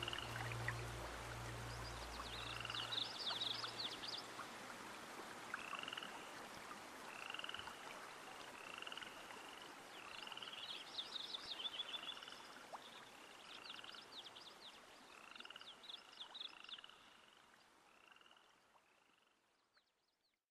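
Frogs calling in a nature-sound recording: short chirps repeating about once a second, mixed with clusters of quick rattling calls, fading out to silence near the end. The last of a soft music tone sounds underneath for the first few seconds.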